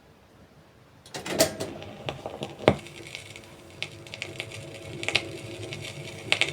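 Vinyl record on a Minsk-58 radiola crackling and popping in the lead-in groove before the music. It starts with a sharp click about a second in, then scattered pops with one loud pop near the middle, over a low hum from the set.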